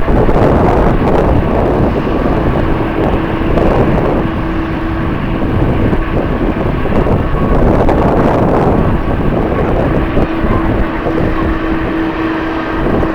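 Jet airliner engines running, heard through strong wind buffeting the microphone, with a steady hum that fades in and out twice.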